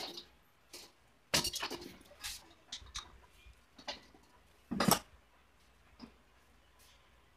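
Metal tools and parts clinking and knocking as they are handled on a workbench beside an automatic transmission: a scatter of sharp clinks, a quick run of them a little over a second in, and the loudest knock about five seconds in.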